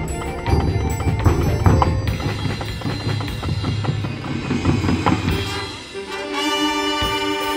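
A marching band plays live, with brass over drums and pit percussion. Near the end the band settles onto a held chord.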